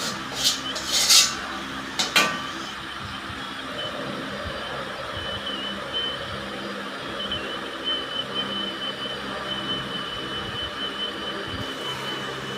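A metal utensil clanks against a pan a few times in the first couple of seconds while fried noodles are cooked, then a steady hiss with a low hum carries on.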